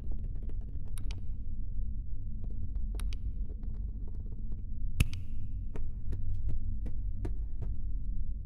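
Electroacoustic tape music: a steady low hum with scattered sharp clicks and ticks at irregular spacing, the loudest click about five seconds in.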